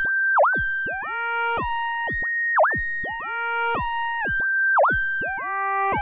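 Vector FM software FM synthesizer playing sine-wave tones from two particle voices. The tones hold steady, then step or glide between set pitches of the scale quantizing their frequency modulation. Three sharp pitch swoops, down and back up, come about two seconds apart.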